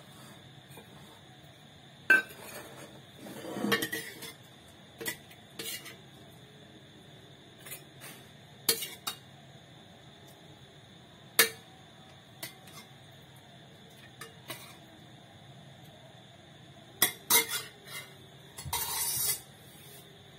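Metal ladle clinking and scraping against a steel pressure cooker and a small steel bowl while serving a thick curry. The clinks come one at a time, with a few short scrapes and a longer scrape near the end.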